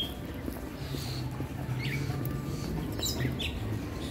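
Birds chirping in short calls about once a second, over a steady low background hum.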